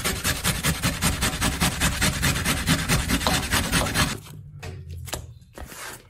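An onion being grated on a handheld metal grater over a wooden bowl: fast, rhythmic rasping strokes, about six or seven a second. They stop about four seconds in and are followed by fainter, scattered scrapes and knocks.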